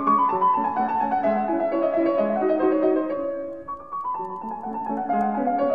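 Background piano music: a melody of changing notes that dips briefly a little past halfway, then picks up again.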